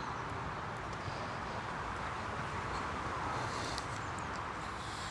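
Steady hum of honey bees around an opened hive, with a few faint clicks.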